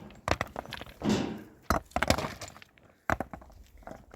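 Hard objects knocking and clinking against each other: about half a dozen sharp, irregularly spaced knocks.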